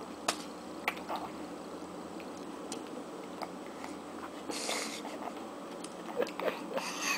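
Baby's mouth smacking and squishing on soft sweet potato as she eats it from her hand, with scattered small wet clicks and a brief hiss about four and a half seconds in.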